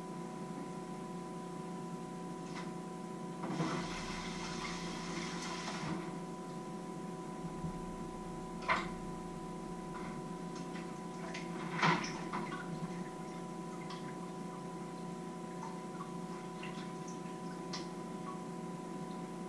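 Kitchen work sounds over a steady electrical hum: a tap runs briefly about three to six seconds in, and there are a few sharp clinks of pots and kitchenware, the loudest about nine and twelve seconds in.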